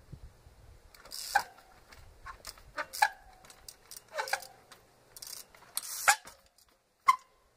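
Trials bike hopping up boulders: about five sharp knocks as the tyres and rims land on rock, several followed by a short ringing tone, with brief scraping hisses between them.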